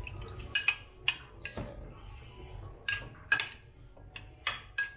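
A metal spoon stirring diced salmon in a ceramic bowl, with irregular sharp clinks as it knocks against the bowl's side.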